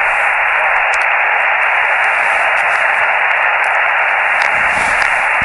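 Portable QRP HF transceiver's speaker giving a steady hiss of receiver static on an empty 20-metre frequency, 14.307 MHz, with no station coming through.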